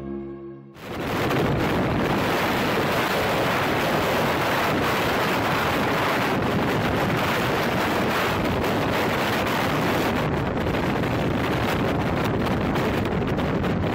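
Strong wind buffeting the camera microphone in a steady rushing noise. It starts abruptly about a second in, just as a piece of music cuts off.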